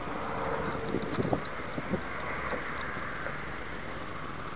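Gusty wind blowing across the microphone of a small camera on the deck of a model sailing yacht, with a few light knocks between one and two seconds in.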